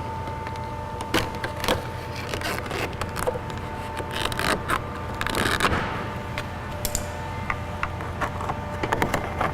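Door trim piece being worked loose by hand: scattered clicks and scrapes of the trim and its clips, with a denser stretch of scraping about four to six seconds in, over a steady faint hum.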